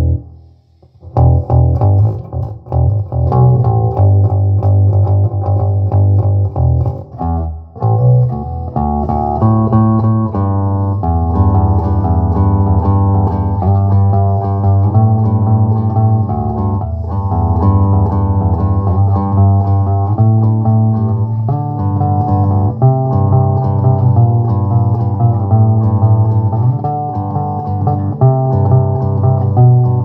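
Electric bass guitar plucked in an improvised line. It starts after a short pause about a second in, then plays on without stopping.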